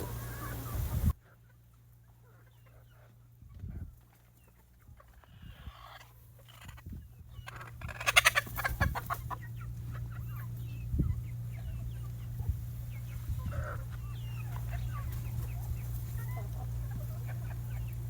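Laying hens clucking, with many short calls and a loud burst of squawking about eight seconds in, over a steady low hum.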